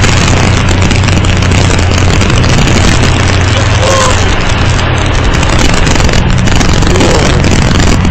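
Vehicle driving over a rough stone road: a steady engine hum under loud, harsh noise, with the recording running close to full level.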